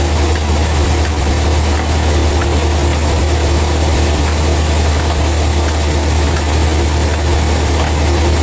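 Heavy machinery engine running steadily at idle: a constant low hum with no cutting or revving.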